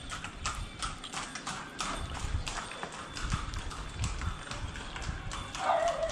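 Walking footsteps on a concrete street, a steady tread of about two steps a second, each step a short click.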